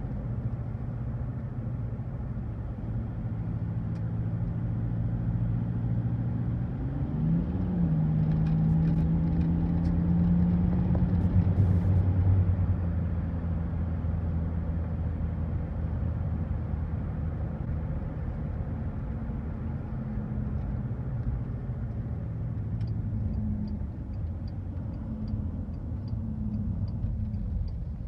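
VW Touareg's V10 TDI diesel and road noise heard from inside the cabin while driving. The engine note rises and grows louder as it accelerates about a quarter of the way in, then eases back toward idle. Faint regular ticking comes in near the end. The engine has a shudder under diagnosis, with negative injection-timing readings that the owner suspects point to fuel starvation.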